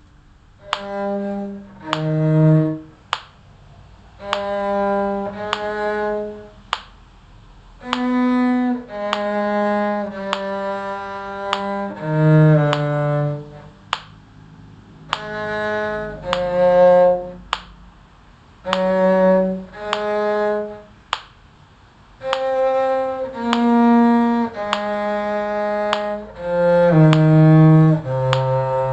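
A bowed string instrument playing a slow melody, one sustained note or short group of notes at a time with brief pauses between phrases, over a metronome clicking at a steady beat.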